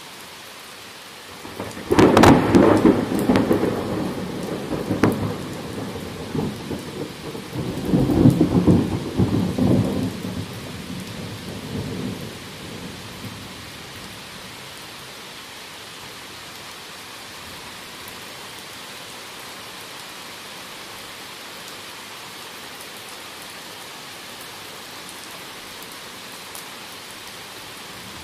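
Thunder cracks loudly about two seconds in and rolls on, swelling again into a second loud peal around eight seconds, then dies away by about thirteen seconds. Steady rain falls throughout.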